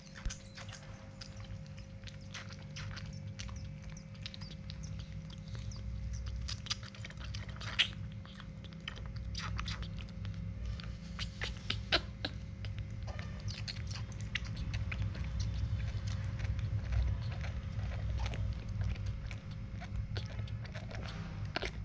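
Baby macaque sucking milk from a feeding bottle's teat: small, irregular wet clicks and smacks, over a steady low hum.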